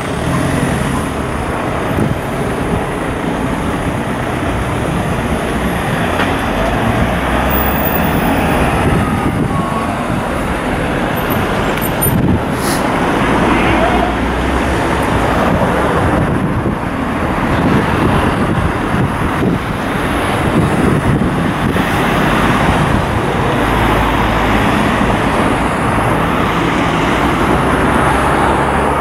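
Street traffic: cars running and passing, a steady rush that swells and eases as vehicles go by.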